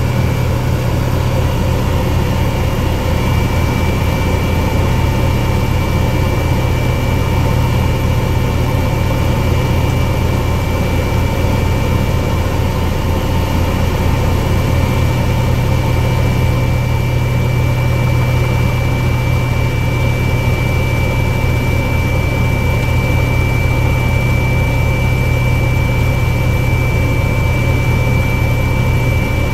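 Helicopter rotor and turbine engine heard from inside the cabin during lift-off and climb: a fast, even rotor beat under a steady high turbine whine.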